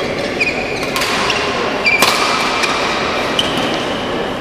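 Badminton rally: a racket strikes the shuttlecock about a second in and again a second later, with short high squeaks from court shoes on the floor, in a large echoing hall.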